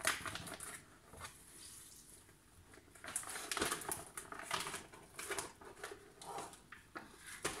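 Hands handling and rinsing a raw salmon fillet at a kitchen sink: irregular wet pats, splashes and rustles, quieter for a moment about a second in.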